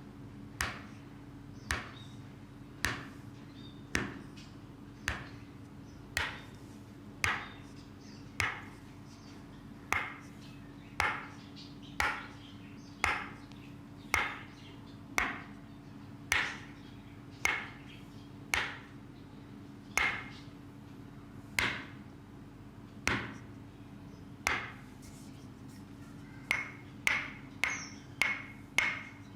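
Sharp rhythmic taps, each with a short bright ring, about one a second, quickening to two or three a second near the end. A faint steady hum runs underneath.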